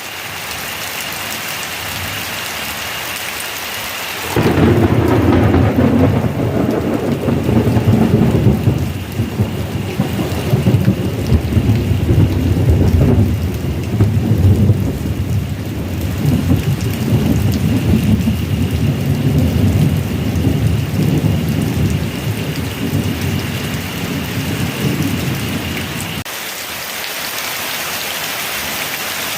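Heavy rain falling steadily. About four seconds in, a long rolling rumble of thunder starts suddenly and lasts some twenty seconds before stopping abruptly, with the rain going on throughout.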